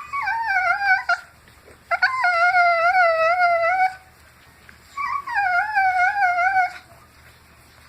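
Dog making long, wavering howl-like whines, three drawn-out calls with quiet gaps between them, a vocal response to being scratched.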